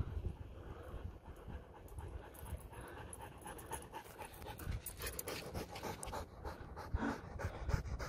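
Siberian husky panting with its tongue out, getting closer and louder over the last few seconds as it runs up.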